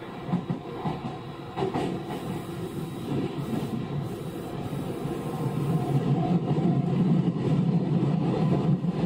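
Running noise heard from inside an equipment-renewed Osaka Metro 66 series commuter train: wheels on rail, with a couple of sharp clacks in the first two seconds. The noise grows louder from about six seconds in.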